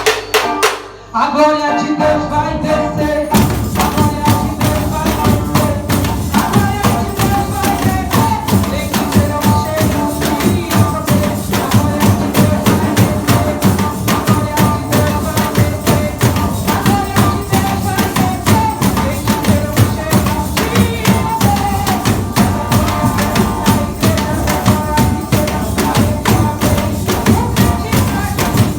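Band percussion playing a fast, steady beat of dense strikes under a sustained melody line. After a brief dip about a second in, the full low beat comes in about three seconds in and carries on.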